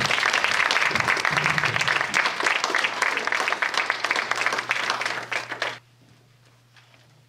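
Audience applauding, a dense patter of many hands clapping that cuts off suddenly almost six seconds in.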